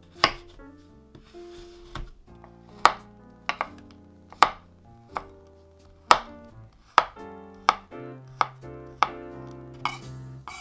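Chef's knife chopping a bar of milk chocolate on a wooden cutting board: about a dozen sharp, unevenly spaced knocks of the blade through the chocolate onto the board.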